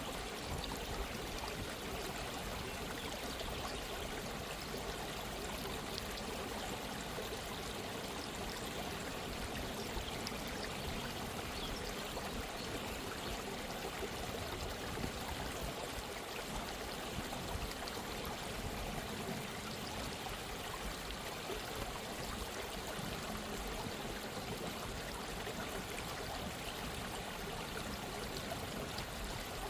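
Gently running stream: a steady, even babble and trickle of flowing water.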